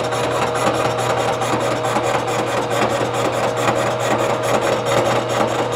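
Vertical milling machine driving a 3-inch face mill across a cast iron exhaust manifold flange on a light finishing pass. A steady motor hum and whine runs under the dry scrape of the inserts cutting, which pulses in a fast, even rhythm.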